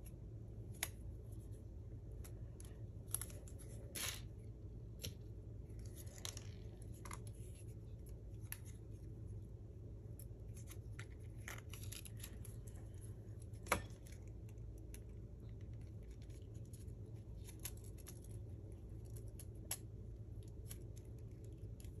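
Faint handling sounds of fingers fumbling with a small metal paper brad and cardstock: scattered light clicks and scratches, with one sharper click about two-thirds of the way through.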